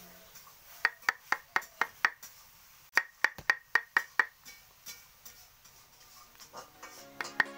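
Wooden mallet striking a carving chisel into a block of wood: two quick runs of sharp taps, about four a second, then a few lighter taps.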